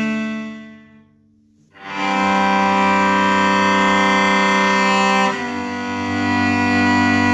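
Instrumental music of sustained, bowed-string-like chords: a held chord fades out in the first second, a brief pause follows, then a new chord enters about two seconds in and moves to another chord a little past five seconds.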